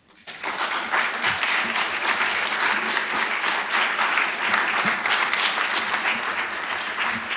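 Audience applauding: many people clapping together, breaking out suddenly at the start and keeping up at a steady level throughout.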